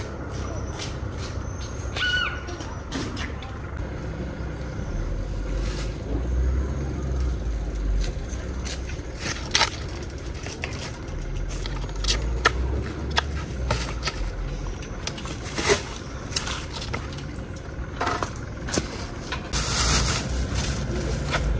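Roadside street ambience: scattered knocks and scrapes from footsteps and a woven bamboo basket being handled, with a low rumble of traffic coming and going, and a plastic bag rustling near the end.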